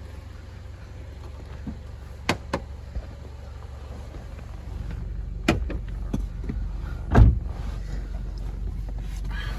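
A metal gate and its chain being handled: sharp metallic knocks and clinks, then a heavy thump about seven seconds in, over a steady low rumble.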